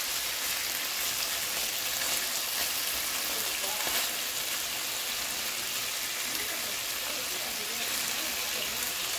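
Bacon strips sizzling in a frying pan: a steady hiss with fine crackling pops throughout.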